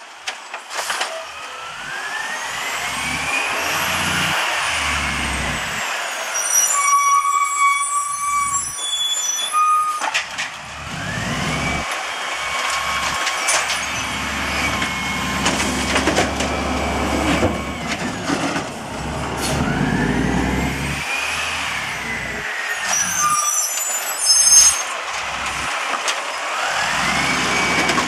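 Diesel engine of an Amrep automated side-loader garbage truck revved up and down by hand as the arm lifts and dumps recycling carts, its pitch rising and falling several times. Two bursts of air hissing break in, about a quarter of the way in and near the end.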